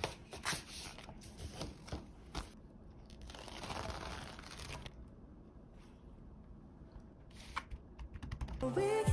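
Paper and plastic packaging crinkling and tearing as a silicone keyboard skin is unwrapped, with scattered light taps as the skin is pressed onto a laptop keyboard. Background music with singing comes in near the end.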